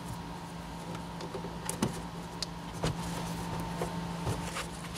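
A steady low hum with a few light clicks and taps as plastic trim clips and carpet trim are handled.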